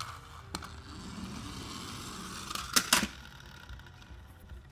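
A plastic toy race car rolls across a ribbed plastic sheet. About three seconds in come two sharp clacks as it drops among other toy cars in a cardboard box.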